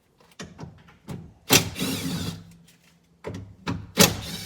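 Cordless impact tool spinning out 10 mm bolts in two short bursts, about a second and a half in and again near the end, each with a few lighter clicks as the socket is fitted before it.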